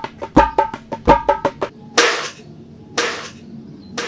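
Percussion sound effect of quick wood-block knocks, about half a dozen a second, keeping time with hands slapping a ball of roti dough. Then come two short hissing whooshes about a second apart.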